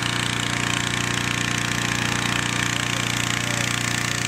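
Hot-air balloon inflator fan's small petrol engine running steadily at a fixed speed, with the rush of the air it blows.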